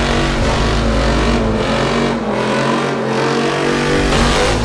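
Car engine revving hard during a burnout.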